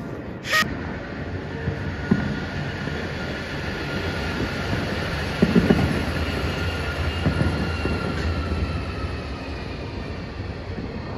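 A street tram passing below: a steady rumble with a high wheel squeal that slowly falls in pitch, and a few knocks about halfway through. There is a single sharp crack about half a second in.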